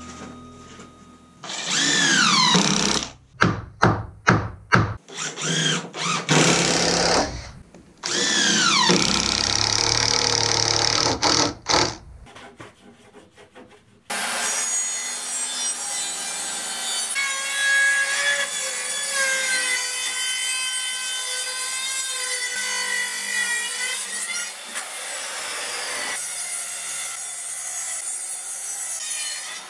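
Circular saw cutting wooden boards. Several short cuts come first, each ending in a falling whine as the blade spins down. Then a longer, steadier cut runs for about twelve seconds.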